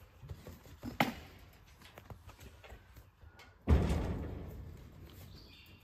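A sharp knock about a second in, then a loud sudden bang near the end that rings and rattles away over about two seconds, likely from the cow or the people knocking against the trailer or its fencing.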